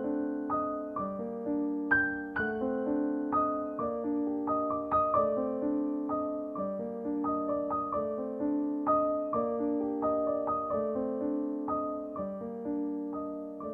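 Background music: a piano playing a steady, even flow of notes over held lower notes.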